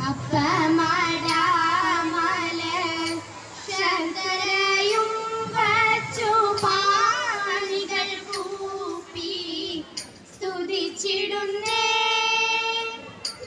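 Girls singing a melodic song together in long phrases with held, wavering notes, with a short break about ten seconds in.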